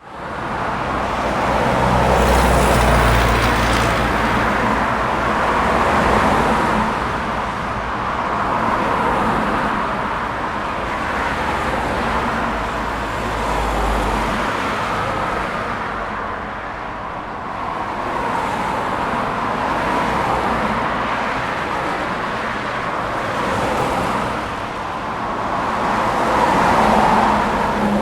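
Highway traffic: a steady wash of tyre and engine noise, swelling as vehicles pass every few seconds, with a deep low rumble through the first half. It fades in at the start.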